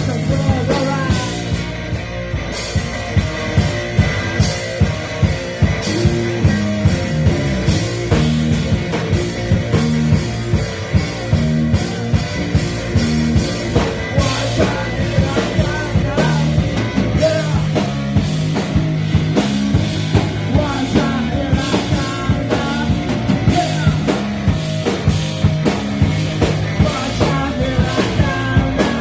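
A punk rock band playing live and loud: drum kit, instruments and a singing voice.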